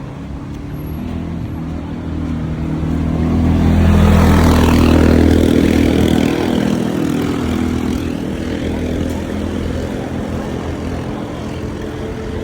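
A motor vehicle passing by, its engine growing louder to a peak about four to six seconds in, then slowly fading away.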